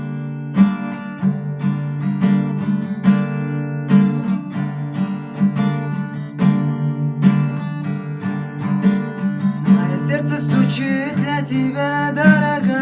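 Acoustic guitar strummed in a steady rhythm of about one and a half strokes a second, playing the song's intro. About ten seconds in, a voice begins singing over it.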